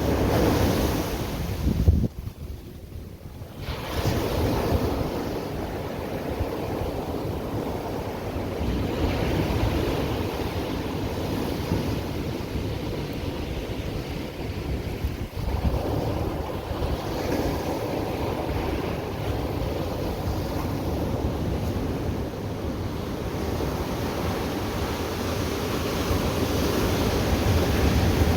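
Ocean surf breaking and washing up the beach in a continuous rush, with wind buffeting the microphone. It goes briefly quieter about two seconds in, then picks up again.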